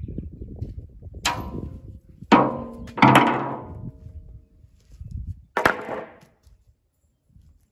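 Wooden boards knocking and clattering against each other: four sharp wooden knocks, the loudest two close together about two and a half and three seconds in, each ringing briefly as it dies away.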